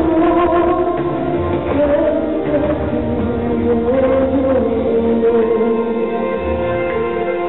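Live pop song over a concert sound system: a male vocalist sings held melodic lines into a handheld microphone over instrumental backing with a steady low beat.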